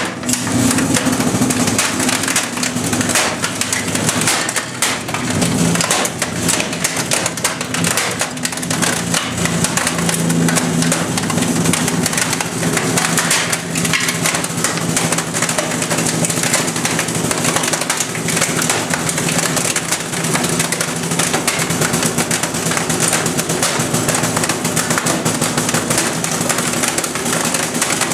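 Hydraulic trash compactor running under a steady low hum while its platen presses down on an old Apple printer. The printer's plastic casing and the scrap beneath crackle and crunch under the load.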